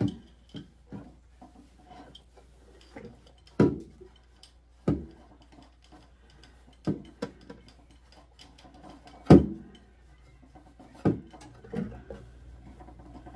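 Scattered knocks and clunks, about ten in all at uneven gaps, the loudest about nine seconds in, from items and shelf parts being handled inside an open refrigerator as it is cleaned out.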